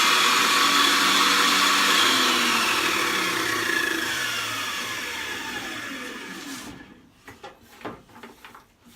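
Table saw blade spinning freely, then switched off and winding down, its whine falling steadily in pitch over about four seconds until it stops. A few faint knocks follow.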